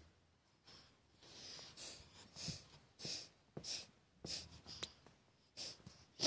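A baby's short, faint breaths and snuffles close to the microphone, a few each second.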